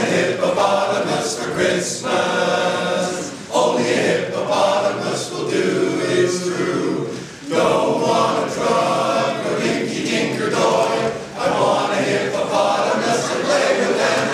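Men's barbershop chorus singing a cappella in close harmony, in phrases with short breaks about every four seconds.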